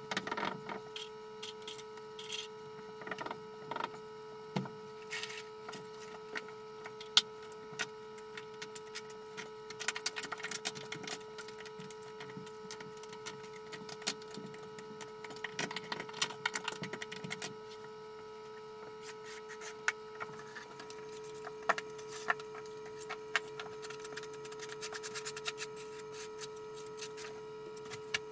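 Hand work setting floor tile: scattered clicks, knocks and rubs of tools, tiles and plastic tile-leveling clips being handled, over a steady electrical hum.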